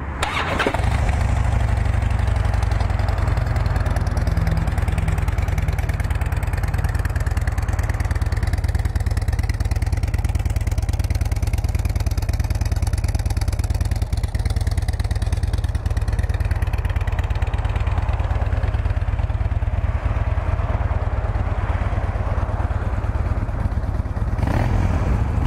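A 2007 Harley-Davidson Street Bob's fuel-injected Twin Cam 96 V-twin idling through its factory exhaust. It runs a little faster for the first few seconds, then settles into a steady idle.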